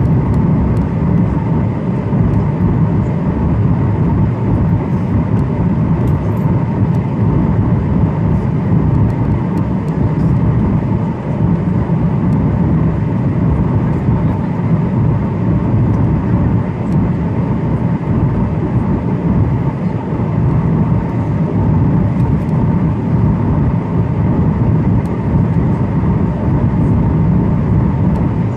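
Steady cabin noise of a Boeing 737-900 airliner in flight, heard from a window seat: a deep, even rumble of the CFM56 jet engines and rushing air, with a faint steady high tone above it.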